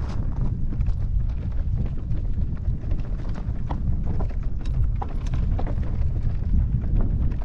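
Mountain bike on a rocky trail: an irregular clatter of tyres and frame knocking over stones, over a steady rumble of wind on the microphone.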